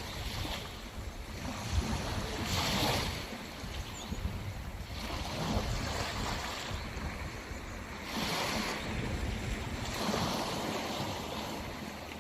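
Sea waves washing onto the shore, surging every few seconds, with wind rumbling on the microphone.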